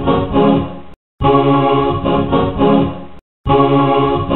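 Organ music: the same short phrase of about two seconds repeating as a loop, each repeat cut off sharply by a brief moment of silence, about a second in and again a little after three seconds.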